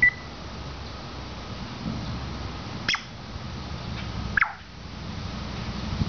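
African grey parrot giving short, sharp whistled chirps, three in the space of about four and a half seconds, over a steady low hum.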